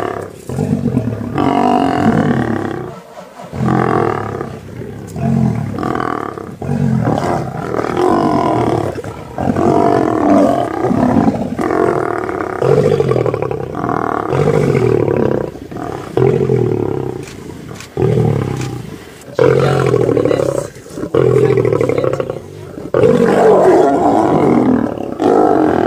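Lions growling over a carcass while they feed, one loud growl after another every second or two.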